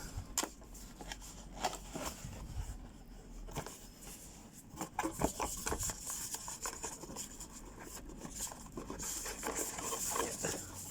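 A cardboard box being opened by hand: scattered taps, scrapes and rustling of cardboard and packaging, with a longer sliding hiss near the end.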